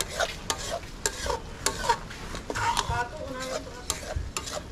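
A metal ladle stirring a pan of boiling meat stew, scraping and clinking against the pan several times a second, over the simmer of the liquid.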